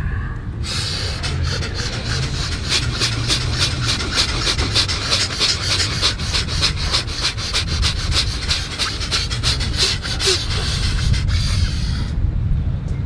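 Bhastrika (bellows breath): rapid, forceful, evenly paced in-and-out breathing, several strokes a second. It starts about half a second in and stops abruptly about a second before the end, where the breath is held after the round of rapid breaths.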